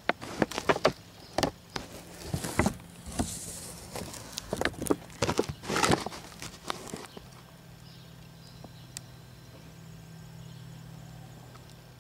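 Irregular knocks and taps, a few at a time, for about the first seven seconds, the handling noise of hands and a camera around a tabletop. After that a steady low hum continues alone.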